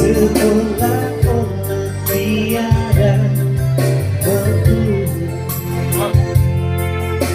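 A song with a singing voice over an instrumental backing, with sustained bass notes and a regular beat.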